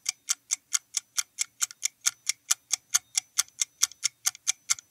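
Quiz countdown-timer sound effect: an even, clock-like ticking at about five ticks a second, running while the answer time counts down.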